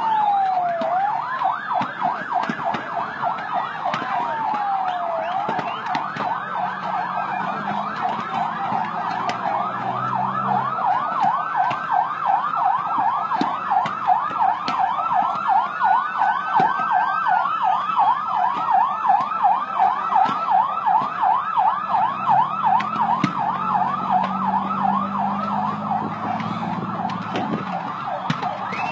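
Several emergency vehicle sirens sounding at once: a fast yelp cycling up and down several times a second over slower wails that rise and fall every few seconds.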